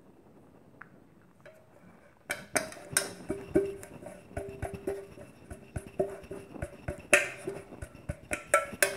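A metal pressure-cooker container being tapped and knocked repeatedly while flour is shaken around its greased inside to coat it. The knocks are irregular, about two or three a second, and each leaves a brief ringing tone from the vessel. The knocking starts a couple of seconds in, after near silence.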